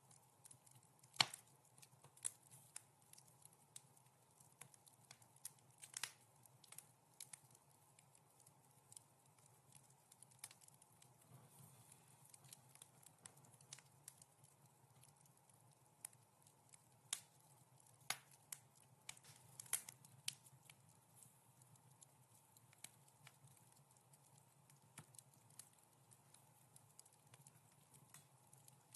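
Fireplace wood fire crackling softly, with irregular sharp pops and snaps. The loudest pop comes about a second in, and a few more stand out at around 6, 18 and 20 seconds, over a faint steady low hum.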